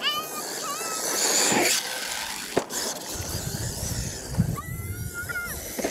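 R/C monster truck driving hard on loose dirt, its motor and tyres making a rushing noise that is loudest about a second and a half in, with a sharp knock about two and a half seconds in.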